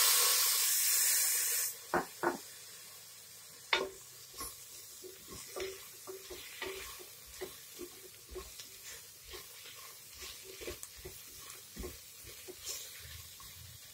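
Sliced tomato dropped into hot oil and fried onions sets off a loud sizzle that stops suddenly under two seconds in. Then a spatula stirs and scrapes through the onions and tomato, with a few sharp knocks against the pot and many light taps.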